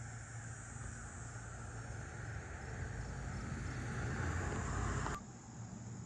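Insects buzzing steadily over a low rumble of road traffic that grows louder and cuts off abruptly about five seconds in.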